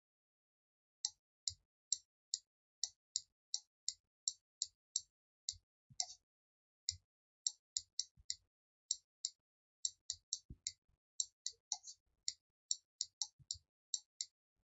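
Computer mouse button clicking, short sharp clicks about two or three a second in an uneven rhythm, starting about a second in: the button pressed and released for each stroke drawn on a whiteboard app.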